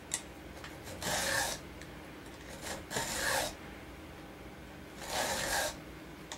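Hand file rasping across the cutter teeth of a chainsaw chain, sharpening it freehand: three separate strokes about two seconds apart, with a short click just after the start.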